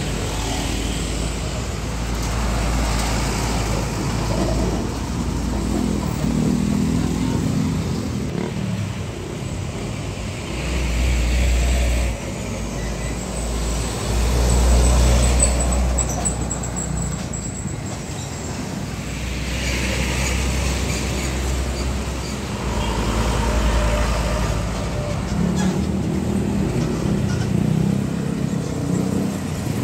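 Roadside traffic: diesel trucks and motor scooters passing one after another, a heavy low engine rumble that swells and fades as each big truck goes by.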